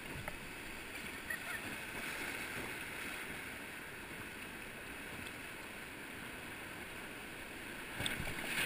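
Whitewater rapids rushing steadily, growing louder and splashier near the end as the raft reaches rougher water.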